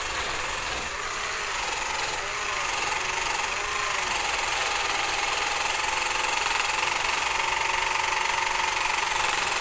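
Theragun G3 Pro percussive massage gun running and hammering against a leg: a steady rapid buzz. Its pitch wavers up and down in the first few seconds, then holds steadier.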